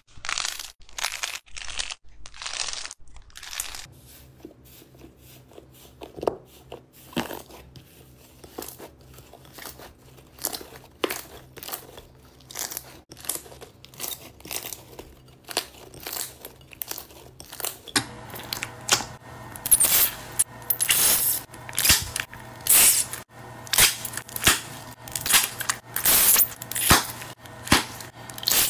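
Hands squeezing, pressing and kneading slime, making a run of sticky crackles and pops; they come faster and louder in the last ten seconds.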